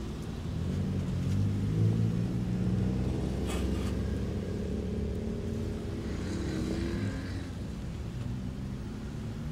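Car engines of several cars driving past one after another as they pull out. The engine note rises as each car accelerates away, loudest in the first few seconds, with another car's engine rising again past the middle.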